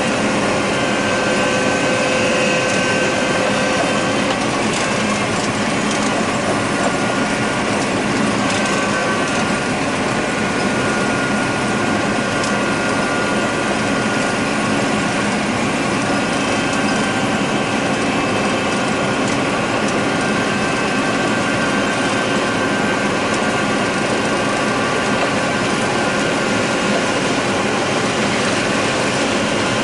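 John Deere 9600 combine running steadily while harvesting corn: a continuous mechanical din of engine and threshing machinery, with a few faint steady tones through it.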